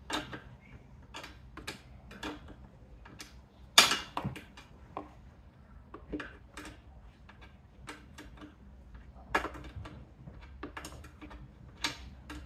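Irregular clicks and taps of hands fitting a small motorcycle turn-signal indicator and doing up its mounting by hand, plastic and metal knocking against the rear bracket. One sharper knock comes about four seconds in.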